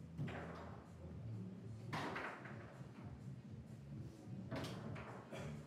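Four sharp knocks with short clattering tails, typical of foosball rods, handles and balls striking in a foosball hall, over a steady low hum. The loudest knock comes about two seconds in, and two come close together near the end.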